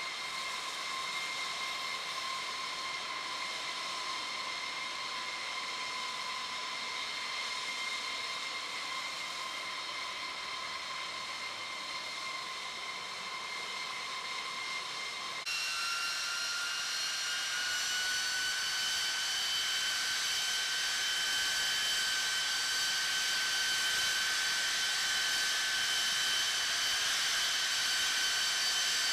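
Steady high whine of jet turbines running at idle, with several clear tones over a rushing hiss. About halfway through it changes abruptly to a louder, higher-pitched whine, which sags slightly in pitch near the end.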